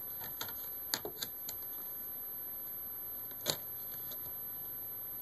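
Sharp plastic clicks as the screen bezel of a Dell Latitude E6510 laptop is pried off its clips. A small cluster of clicks comes about a second in, and one louder snap about three and a half seconds in.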